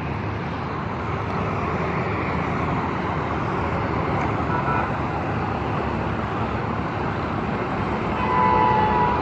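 Steady road traffic noise, with a vehicle horn sounding and held briefly near the end.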